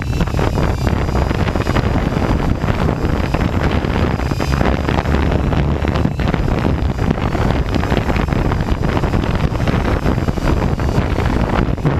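Hard wind buffeting the microphone with a constant low rumble, over the faint high whine of a hexacopter's electric motors and propellers, wavering in pitch as the motors work against the gusts.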